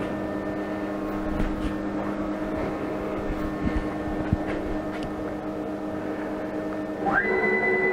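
Steady machine hum with a few faint clicks from the 6040 CNC router set up in Mach3. About seven seconds in, a stepper-motor whine rises quickly to a high steady pitch and holds as an axis is jogged from the keyboard.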